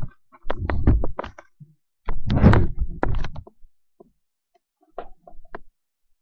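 Knocks and thumps of a handheld webcam being moved and bumped, in two loud bursts over the first three and a half seconds, then a few faint clicks about five seconds in.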